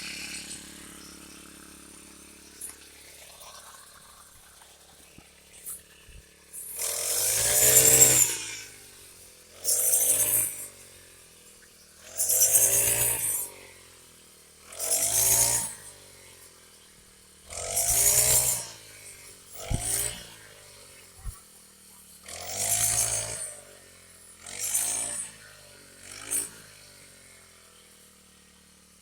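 Engine-powered rice harvesting machine working in repeated loud surges, about nine of them, each lasting a second or so and coming roughly every two and a half seconds. The engine pitch bends within each surge. The first several seconds are quieter.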